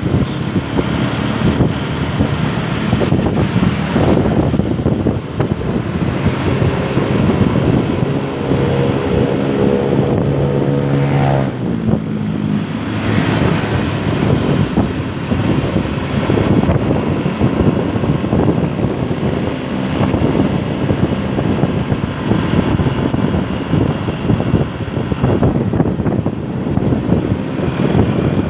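Steady vehicle road noise. From about eight seconds in, a pitched drone with several overtones comes through, rising slightly before it stops near eleven and a half seconds, and a brief lower tone follows.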